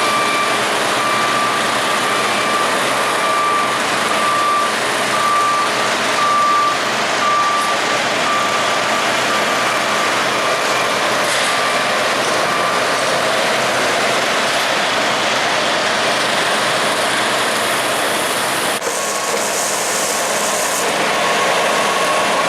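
Backup alarm of a piece of construction equipment beeping about once a second, fading out about halfway through, over the steady noise of diesel machinery at work.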